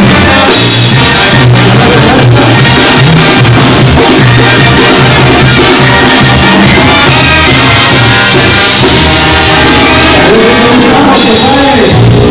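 A live Mexican banda playing loudly: trumpets, trombones and clarinet over a sousaphone bass line and a drum kit, with a male singer on a microphone.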